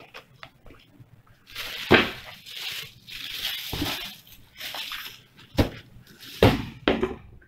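Tissue paper rustling and crinkling as sneakers are pulled out of a cardboard shoebox, broken by several sharp knocks as the shoes and box are handled.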